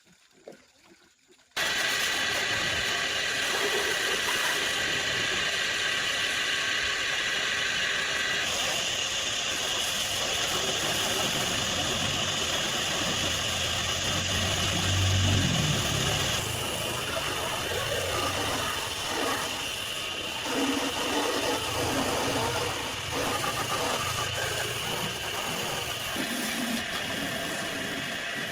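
Near silence, then about a second and a half in a machine starts running steadily and loudly. Its sound changes abruptly twice, about seven and fifteen seconds later.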